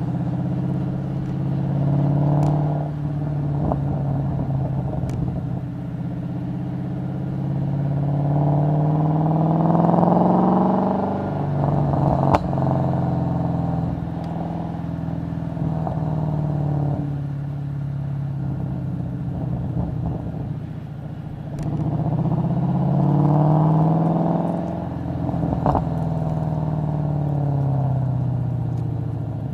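2012 Mustang GT's 5.0 V8 exhaust, through cat deletes, an X-pipe and a JBA axle-back, heard at the tailpipes while driving. It runs at a steady lower rev and twice pulls up in revs before dropping back, with a single sharp crack as the revs fall after the first pull.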